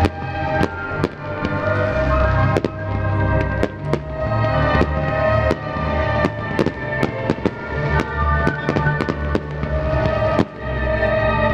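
Aerial fireworks: a rapid, irregular series of sharp bangs and cracks from shells bursting and rockets, several a second, with music playing throughout.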